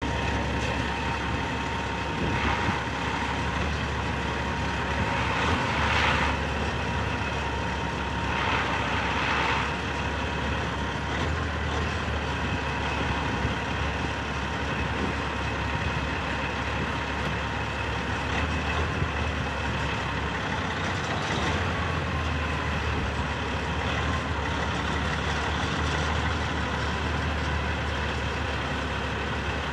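Caterpillar diesel engine of a 2006 Freightliner Classic XL sleeper-cab tractor idling steadily, a low hum with a thin steady whine over it. There are a few short bursts of hiss in the first ten seconds.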